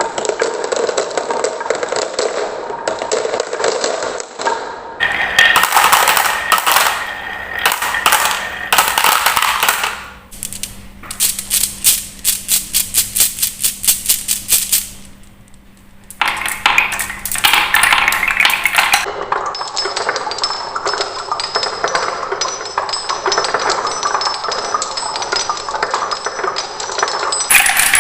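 Marbles and wooden balls rolling and clattering down wooden marble-run tracks: dense clicking and rattling, with a stretch of rapid, evenly spaced clicks in the middle as a ball bumps down a stepped slope.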